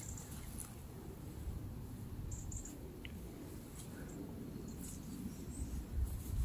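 Handheld camera carried while walking through grass: an irregular low rumble of handling and footsteps, with a few louder bumps near the end. A few faint, short high chirps sound over it.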